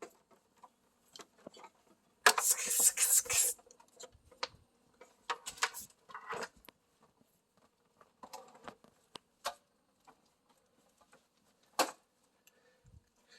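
Rummaging through a pile of cables and clutter: a loud burst of rattling and clattering about two seconds in, then scattered rustles, clicks and knocks, with one sharp click near the end.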